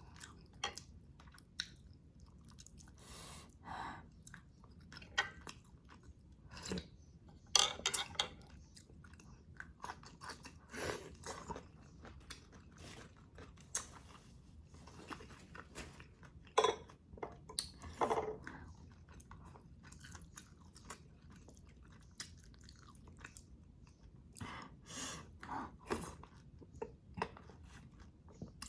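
Close-up eating sounds: wet chewing and lip smacks with scattered crunchy bites, in irregular bursts.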